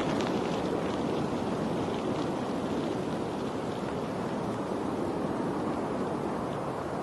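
Steady rushing water noise with no pauses, with a few faint high ticks about a second in.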